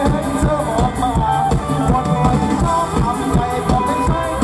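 Live mor lam band playing amplified dance music, a steady driving drum beat under a sustained melody.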